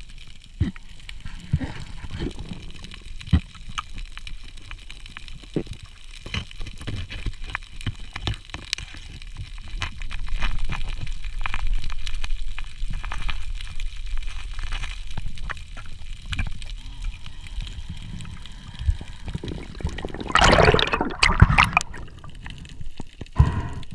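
Underwater sound on a diver's camera: a low water rumble with scattered sharp clicks and knocks. Near the end comes a loud rushing, bubbling burst lasting a second or two.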